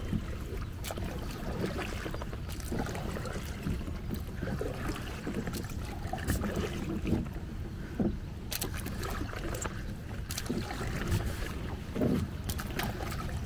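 A small folding boat being paddled: irregular paddle strokes swishing and splashing in the water, with scattered light knocks and clicks against the hull over a steady low rumble.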